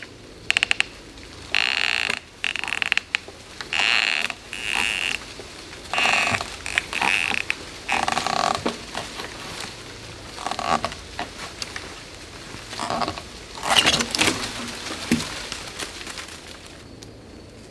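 Irregular creaking, cracking and rustling of wood and vines under strain as a dead eastern red cedar tangled in vines is worked loose. The noises come in short, uneven bursts with scattered sharp clicks, the loudest cluster about fourteen seconds in.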